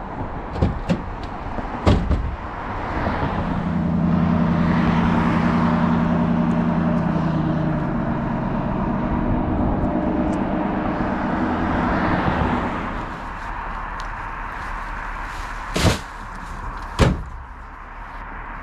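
A motor vehicle passing close by on the road, its engine and tyre noise building and fading over about ten seconds. Sharp knocks sound about two seconds in and twice near the end.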